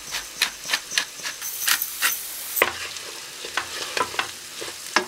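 A utensil scraping and knocking in a frying pan as rice is stirred through in hot olive oil, in short strokes about three a second, over a light sizzle.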